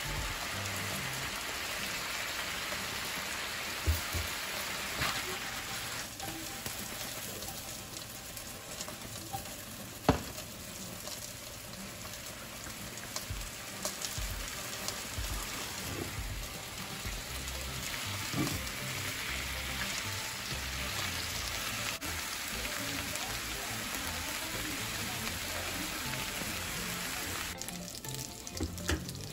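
Broccoli and potatoes sizzling in a frying pan, a steady hiss, with a couple of sharp knocks about four and ten seconds in. Near the end the sizzle drops away.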